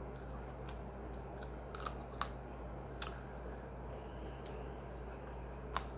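A few short, sharp clicks, scattered irregularly, over a steady low hum.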